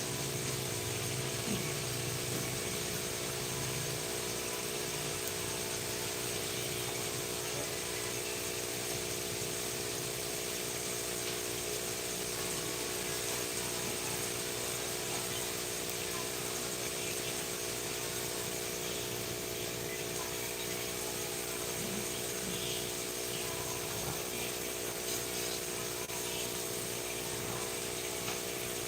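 A steady machine hum with a constant hiss, like a small motor or fan running unchanged, with a few faint ticks.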